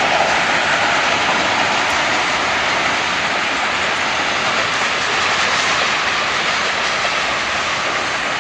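Freight train rolling past on the bridge: a loud, steady rush of wheels on the rails, easing slightly near the end.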